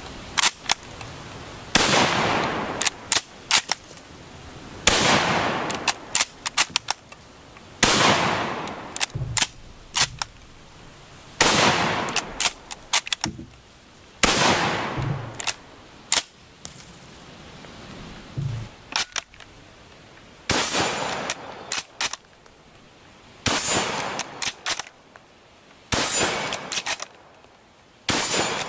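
A .303 Lee-Enfield No. 4 bolt-action rifle fired about nine times, roughly every three seconds with a longer pause in the middle. Between shots come the quick metallic clicks and clacks of the bolt being worked to eject the case and chamber the next round.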